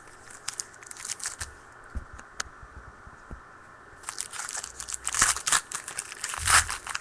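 Trading-card pack wrappers crinkling as they are handled. There are scattered crackles at first, then a denser, louder run of crinkling over the last three seconds.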